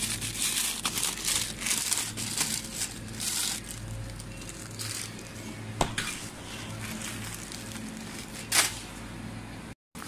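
Plastic packaging crinkling as it is handled, in a run of rustling bursts over the first few seconds, followed by two sharp knocks.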